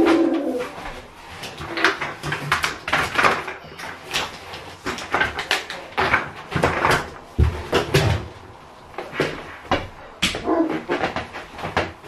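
Irregular clicks, knocks and rustles of a Numatic Henry vacuum cleaner being handled with its motor off, its wand moved about and its motor head lifted off the tub. A short low pitched call sounds at the very start and again about ten and a half seconds in.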